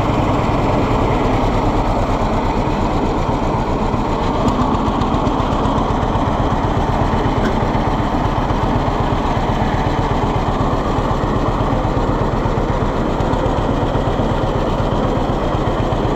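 John Deere B tractor's two-cylinder engine running steadily while driving, with an even low firing beat.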